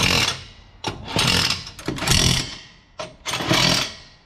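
Cordless impact wrench run in four short bursts, about a second apart, on the lug nuts of a dirt late model race car's wheel.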